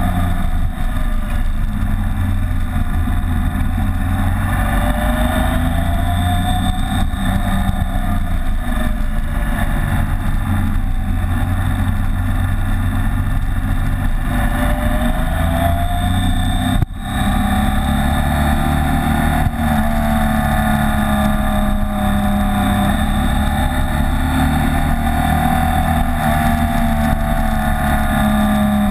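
BMW K75 motorcycle's three-cylinder engine running under way, its pitch rising and falling with the throttle through the bends. The sound drops out briefly about two-thirds of the way through.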